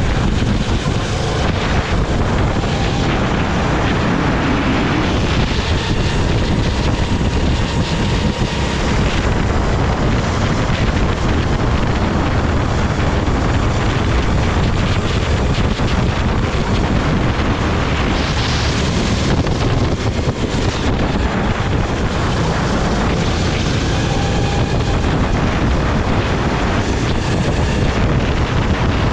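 Kart engine running steadily at speed through a lap, mostly buried under heavy wind noise buffeting an onboard camera microphone.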